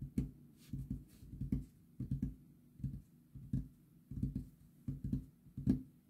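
Fingertips tapping on a tabletop: about a dozen short knocks at an uneven pace.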